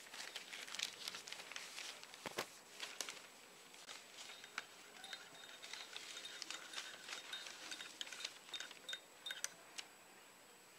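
Paper rustling as a newspaper is handled, then a metal teaspoon clinking lightly against a small porcelain coffee cup as coffee is stirred, in many small sharp clicks.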